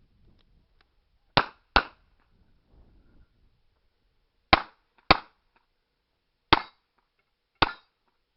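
Revolver shots during an IPSC revolver stage: six shots, a quick pair about a second in, another pair a few seconds later, then two single shots about a second apart.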